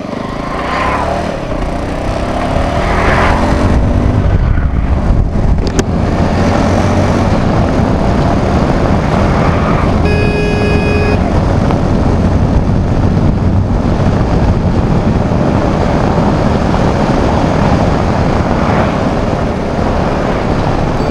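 Cruiser motorcycle pulling away and revving up through the first gears, then running at highway speed with heavy wind noise over the microphone. A brief pitched tone sounds about halfway through.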